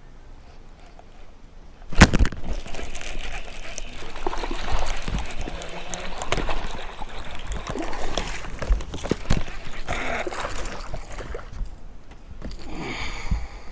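A hooked bass splashing and thrashing at the water's surface as it is reeled in to the boat, with irregular sloshes and slaps. It starts with a sudden loud knock about two seconds in, the loudest sound here.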